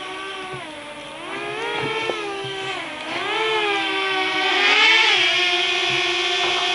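Small multirotor drone's propellers buzzing, the pitch dipping and rising several times as the motors change speed, then settling into a steady, louder hum.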